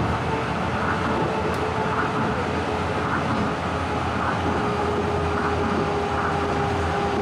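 Tokyo Monorail local train running, heard from inside the car: a steady rumble with a faint motor whine, the motor sound that strikes the rider as very nostalgic.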